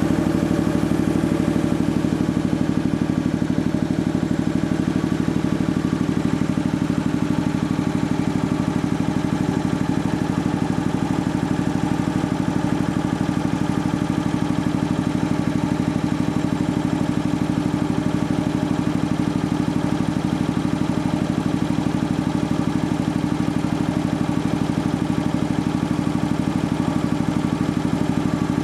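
Sperre HV2/200 air compressor running steadily on a test run, a fast, even pulsing beat with a strong low hum.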